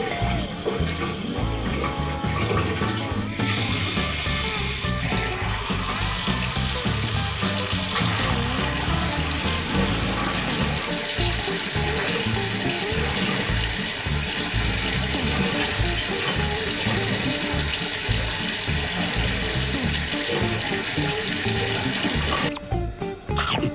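Tap water running steadily into a ceramic sink, with background music. The stream gets heavier and louder about three seconds in, and the water sound drops away near the end.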